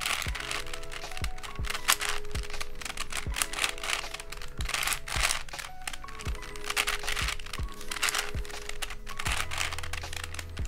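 Layers of a plastic 5x5x4 cuboid puzzle being turned in quick succession, clicking and clacking, over background music with a steady beat.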